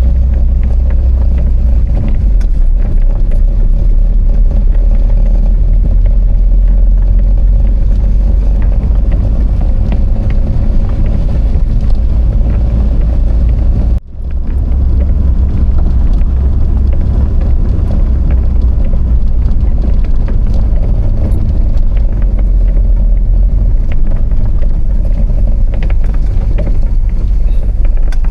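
A steady low rumble of a vehicle travelling along a road, mixing engine and road noise. It cuts out for an instant about halfway through, then carries on as before.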